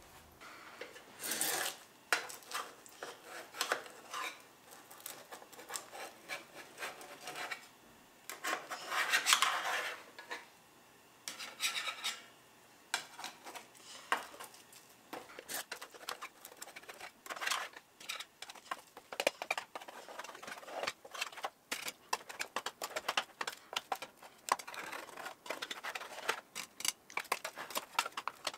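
A spatula scraping and tapping in a metal muffin-top pan, prying baked egg rounds loose. It comes as an irregular run of short scrapes and clicks, with a longer, louder scrape about nine seconds in.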